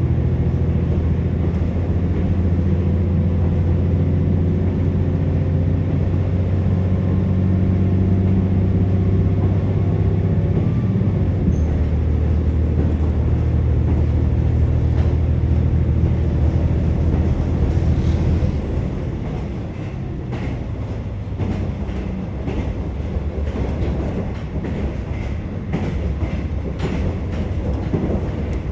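KiHa 47 diesel railcar running, heard from inside the passenger car: a steady diesel engine drone under power that changes pitch about 12 seconds in, then falls away about 18 seconds in as the train coasts, leaving wheel rumble and clicks over the rail joints.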